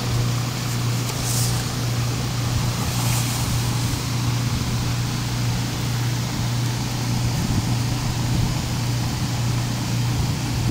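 A steady low hum under a constant rushing noise, with a brief soft rustle about three seconds in.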